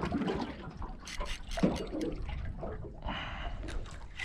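Water sloshing and trickling around a small boat's hull in irregular splashes, with a hissy rush about three seconds in.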